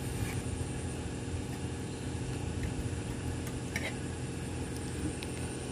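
Steady low mechanical hum, as of a motor running, with a couple of faint clicks.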